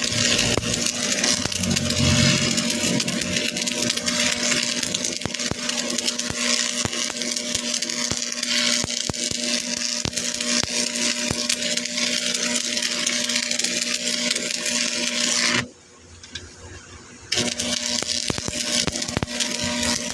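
Steady machine noise from metalworking, with a constant hum and many quick crackling clicks. It cuts off abruptly about three-quarters of the way through and starts again a second and a half later.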